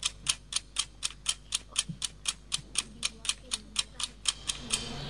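Clock ticking steadily at about four ticks a second, counting down the time allowed for answering a quiz question. The ticking stops shortly before the end.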